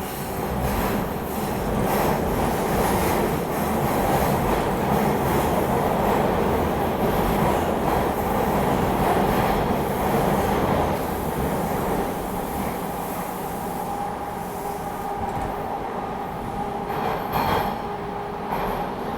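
TTC Line 2 subway train pulling out of the station and running off along the track: wheel and motor rumble that builds within the first second or two, stays loud for several seconds, then eases to a lower, steady level.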